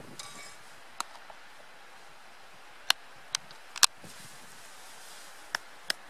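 A metal spoon clinking against a small cup about six times, sharp separate clinks at irregular intervals, as coffee and milk powder are spooned in and mixed.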